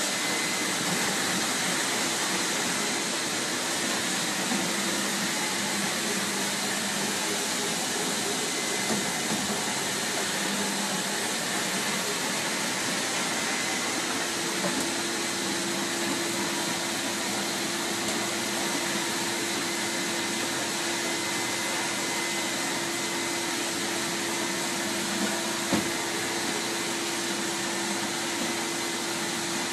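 Electric floor cleaning machine running steadily, its scrubbing pad working across a terrazzo floor, with a steady hum and faint whine that grows a little stronger about halfway through. A single sharp click comes a few seconds before the end.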